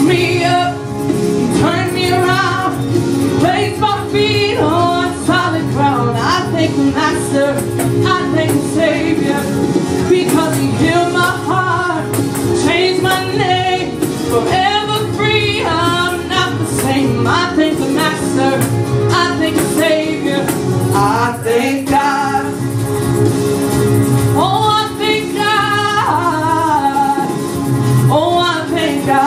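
A woman singing a gospel worship song into a microphone, her voice bending and running through ornamented phrases, over instrumental accompaniment with steady held chords and bass.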